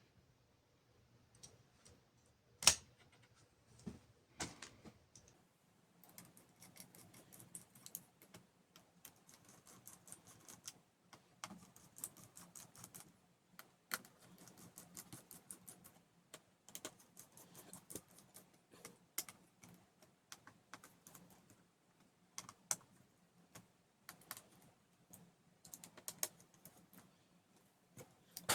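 Small, irregular clicks and taps of laptop parts being handled and fitted back together during reassembly, with a single sharp knock a few seconds in and a dense run of light clicking after that.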